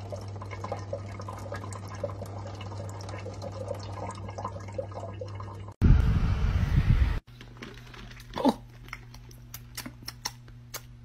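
A kitchen tap runs in a thin stream while a cat laps from it, giving a steady trickle with small ticks. About six seconds in, this gives way to a loud low rumble lasting about a second and a half. A quiet room with a few faint clicks follows.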